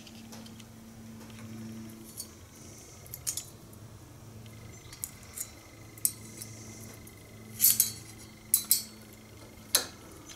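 Hedge trimmer's steel cutter-bar blades and small parts clinking and rattling as they are handled and fitted, scattered light clinks with the sharpest ones bunched together near the end, over a faint steady hum.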